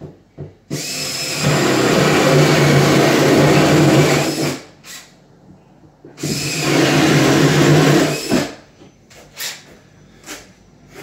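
Power drill boring a hole for a water supply line through a cabinet with a 1-inch spade bit. It runs twice at a steady speed: about four seconds, a short pause, then about two seconds more. The motor winds down at the end of each run.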